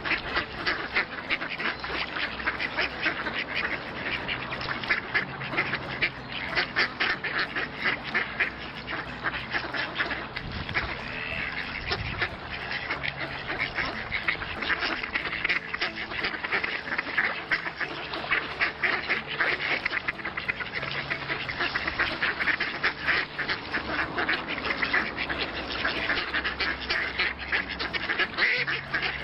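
A flock of ducks quacking in a dense, continuous chorus of overlapping calls.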